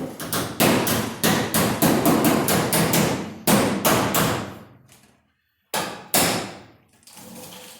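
Hammer blows on car body sheet metal: a fast, uneven run of strikes for about four seconds, then two more a second and a half later, working a new quarter panel's edges down flush before welding.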